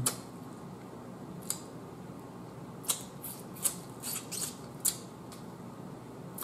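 Wet mouth clicks and lip smacks of someone eating boiled crab and sucking the meat and juice off her fingers. There are several short, sharp clicks, bunched together around the middle, with quiet room tone between them.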